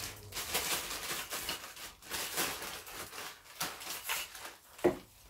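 Clear plastic packaging crinkling and rustling as a tripod is handled and pulled out of its bag, with one sharp knock near the end.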